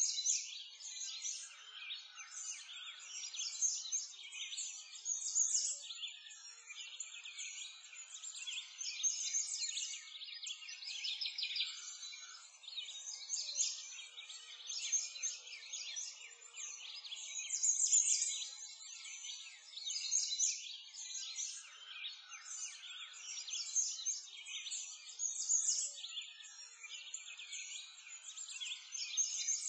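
A dense chorus of many small birds chirping and twittering, all high-pitched, swelling and fading every few seconds.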